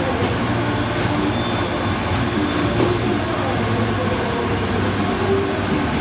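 Horizontal glass washing machine running: a steady mechanical hum and rumble from its drive motors and roller conveyor as glass pieces are fed in.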